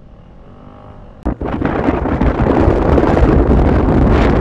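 Wind buffeting the microphone: a loud, rough rumble that starts suddenly about a second in and stays loud, after a faint start.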